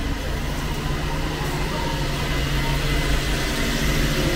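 Steady low mechanical hum with a faint high whine.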